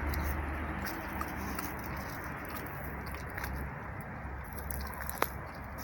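A cat chewing pieces of meat, faint soft clicks over a steady low background hum, with one sharper click about five seconds in.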